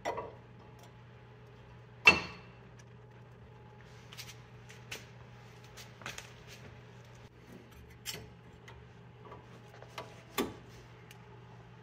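Metal clicks and clacks of new brake pads being handled and slid into the caliper bracket's steel abutment clips, with one sharp, briefly ringing clack about two seconds in and a louder click near the end.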